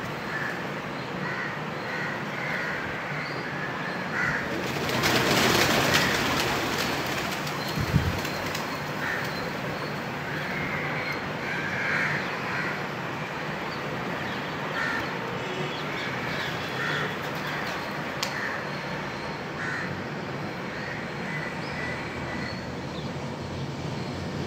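Crows cawing repeatedly over a steady outdoor background. About five seconds in comes a loud rush of flapping wings as the flock of pigeons takes off, and a single sharp thump follows about two seconds later.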